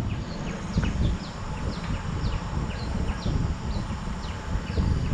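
Birds calling with short, quick falling chirps, about two a second, over a low uneven rumble of wind on the microphone while cycling.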